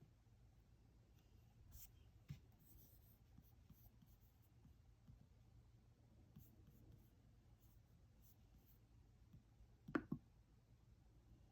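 Faint scattered taps and light handling noises in a small room, with two sharper knocks close together about ten seconds in.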